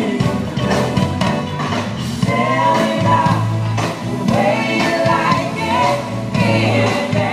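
Live soul/R&B band playing with backing singers singing together over a bass line and drum kit, a sound check run-through of a song.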